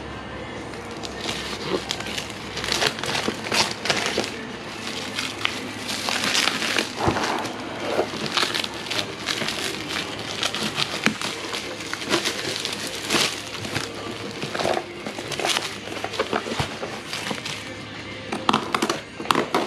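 Cardboard and plastic packaging being handled and pulled apart: a continuous run of irregular rustling, crinkling and scraping, with frequent short sharp crackles.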